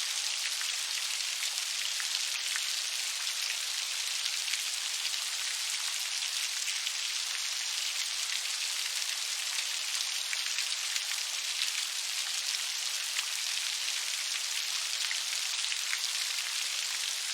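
Steady rainfall, an even hiss of many drops with faint individual drop ticks, no thunder.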